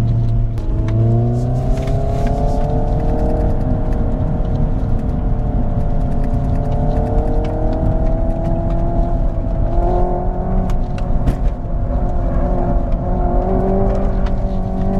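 Hyundai IONIQ 5 N's synthesized engine sound (N Active Sound+) heard inside the cabin of the electric car as it drives, over road rumble. The engine-like note rises in pitch about a second in, holds, and changes pitch again around ten seconds in.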